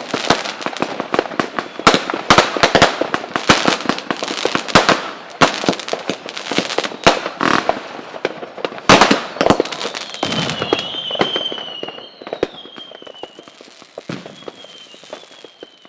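Fireworks going off in rapid overlapping bangs and crackles that thin out and fade after about ten seconds. Over the tail a high wavering whistle slides slowly downward.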